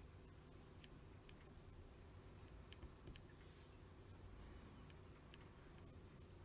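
Conway Stewart 36 fountain pen nib writing on paper, faint: scattered small ticks as strokes start and stop, and a short scratchy hiss about three and a half seconds in.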